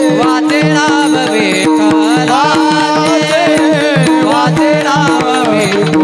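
High-pitched male voice singing a Varkari kirtan melody in Bhairavi chal, with gliding ornaments. It is accompanied by small brass hand cymbals, a barrel drum (pakhawaj) and a steady drone.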